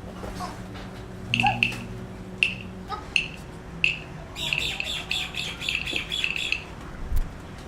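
Bird chirping: a few separate high chirps, then a quick run of chirps lasting about two seconds, over a steady low hum, with a short knock near the end.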